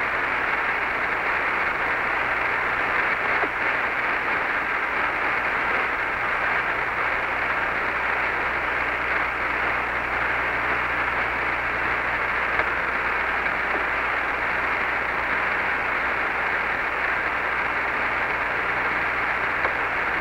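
Steady radio static hissing on the Apollo 11 air-to-ground voice link between transmissions, with a low steady hum underneath and no high treble.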